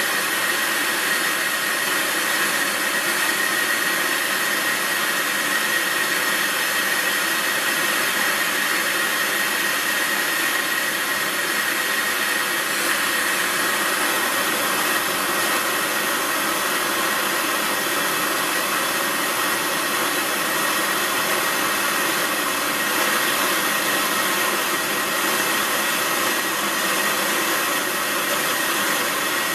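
A machine running steadily, giving an even rushing whir with a faint high whine that fades about halfway through.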